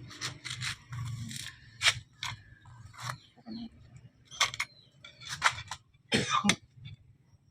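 Irregular sharp clicks and knocks of tools and transmission parts being handled during a manual gearbox overhaul, over a steady low hum.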